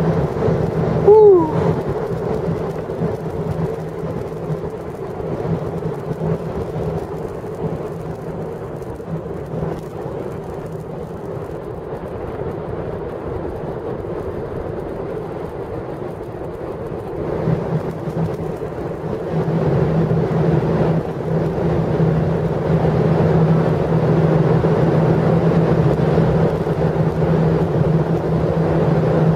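Distant rumble of a twin-engine jet airliner landing, low and steady, growing louder about two-thirds of the way through. A brief falling squeal comes about a second in.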